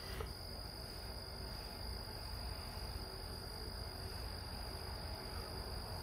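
Crickets trilling without a break, one continuous high-pitched trill over a low background rumble.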